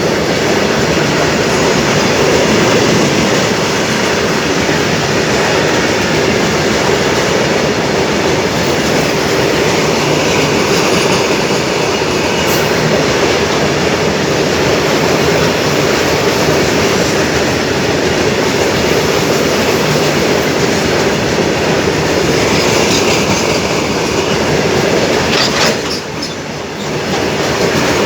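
Moving train running on the rails: a steady, loud noise of wheels and carriages on the track, which dips briefly near the end.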